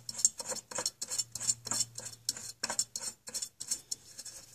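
A new PurolatorONE oil filter being spun onto its threaded stud by hand: a quick run of short rasping strokes of hand against the metal filter can, about three or four a second, thinning out near the end as it snugs up.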